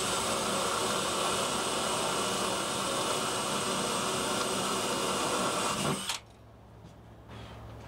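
Power drill running at a steady speed on a wooden furring strip held against the bus's metal ceiling, stopping abruptly about six seconds in.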